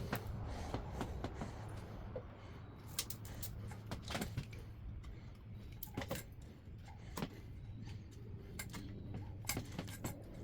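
Scattered light clicks and metallic taps of hand tools and parts being handled during engine disassembly, over a steady low hum.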